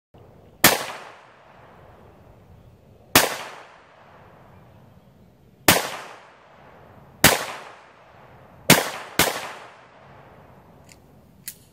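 Six gunshots, each trailing off in a short echo: four spaced about two seconds apart, then a quick pair about half a second apart near the end.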